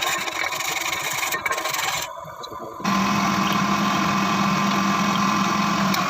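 Workshop machinery working metal: rough scraping and grinding for about two seconds, a brief drop, then a steady machine hum with a low drone from about three seconds in.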